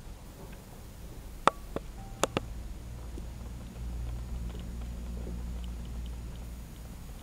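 Wind buffeting the microphone as a steady low rumble that swells from about four seconds in. Four sharp clicks come close together between one and a half and two and a half seconds in.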